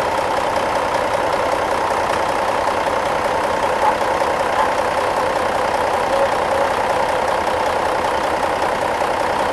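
An engine idling steadily, an even hum that does not change.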